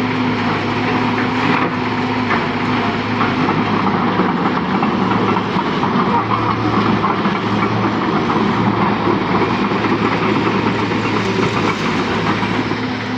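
Heavy diesel machinery running steadily, with a continuous rattling clatter over a constant engine note.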